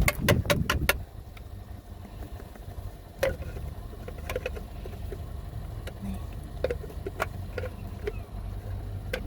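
Plastic parts of a handheld car vacuum being handled with the motor off: a cluster of knocks in the first second, then scattered clicks and taps, over a low steady hum.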